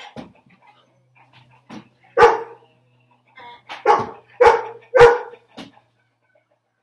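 A dog barking: four loud barks between about two and five seconds in, with a few fainter barks around them.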